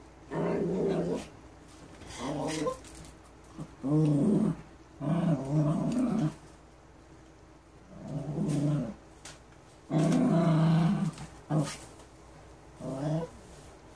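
Small dog growling in a string of drawn-out growls, each about half a second to a second long, with short pauses between them. The growling is set off by a door left open.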